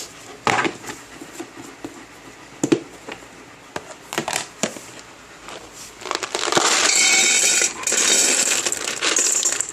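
Dry dog kibble poured into a bowl: a steady rattling pour starts about six seconds in, after a few scattered clicks and knocks of handling.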